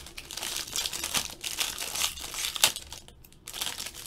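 Foil trading-card pack wrapper crinkling and crackling as it is handled and opened, with a short pause about three seconds in before the crinkling starts again.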